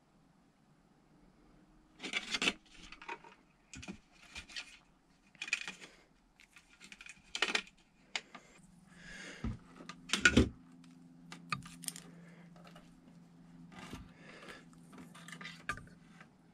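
Handling sounds: hands moving a metal light fixture and a flexible LED light strip on a woven table mat, making irregular rubs, scrapes and clicks with a sharp knock about ten seconds in.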